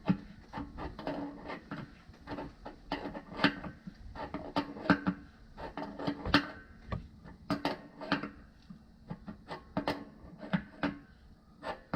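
Adjustable wrench clicking and knocking on the hot-water line's threaded connector nut at the top of a water heater as the nut is tightened down: a run of irregular sharp clicks.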